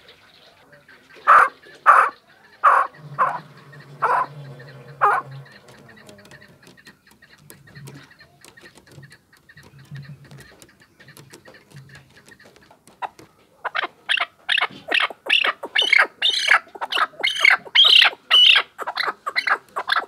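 Chukar partridge calling: about six loud separate calls in the first few seconds, then after a lull a fast run of repeated chuck calls, about three a second, building louder over the last seven seconds.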